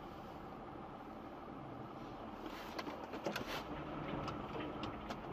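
A vehicle driving, its steady road and engine noise picked up by a dashcam, with a scatter of light clicks and ticks in the second half.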